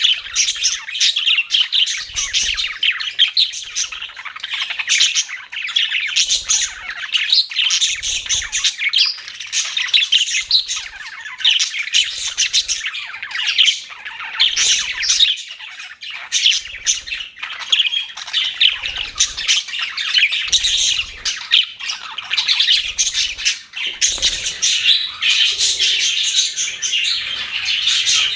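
A group of budgerigars chirping and chattering nonstop, many quick overlapping calls at once.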